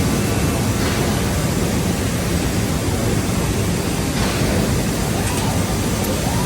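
Steady loud running noise of a CNC drilling machine in a woodworking factory, with a faint tone that rises and falls twice in the second half.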